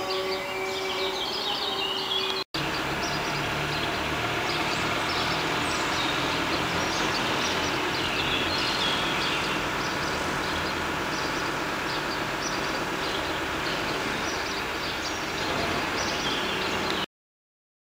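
Town ambience: a steady rumble of distant traffic with many small birds chirping over it. A held tone sounds at the start and breaks off at a brief cut about two and a half seconds in. The sound stops abruptly just before the end.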